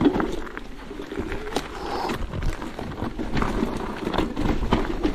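Electric mountain bike ridden over rough trail: the bike rattles, with scattered short clicks and knocks over a steady low rumble.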